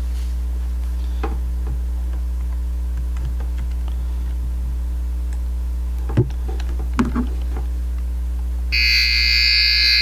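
Mastech MS6813 cable tester's tone-tracing receiver probe giving out a steady low electrical hum through its speaker, with two sharp clicks about six and seven seconds in as a network plug is seated. Near the end a shrill buzzing tone comes in as the probe picks up the traced signal.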